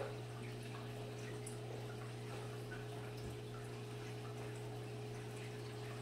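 Steady low hum with a faint even hiss and a few faint ticks: kitchen room tone.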